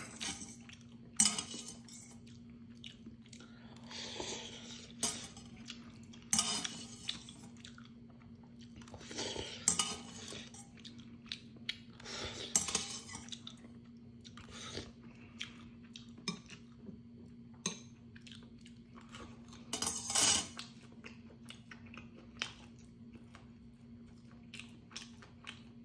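Someone eating Neoguri ramyeon: metal chopsticks and spoon clinking and scraping against a stainless steel bowl, with several short slurps of noodles and broth and some chewing. The loudest slurp comes about 20 seconds in.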